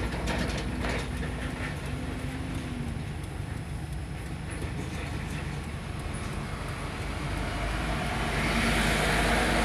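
Heavy trucks running slowly past close by, a steady low engine rumble with road noise. The noise grows louder near the end as a long flatbed trailer rolls past.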